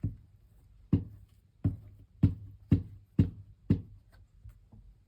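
Glue stick worked against paper on a desktop: a run of about nine short knocks, roughly two a second.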